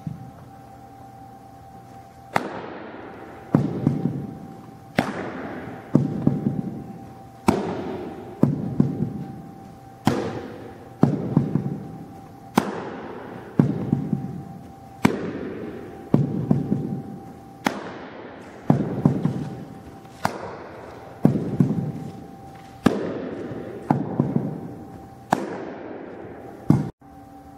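Baseballs popping into a catcher's mitt one after another, a sharp pop about every second, each ringing out in a long echo off the gym's hard walls, over a faint steady hum.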